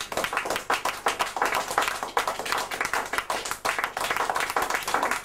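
Audience applauding: many hands clapping together without a break.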